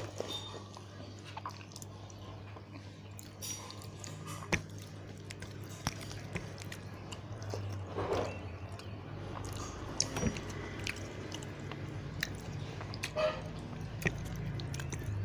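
A person eating a meal of soft khichuri and side dishes: chewing with scattered short mouth clicks and smacks, over a low steady hum.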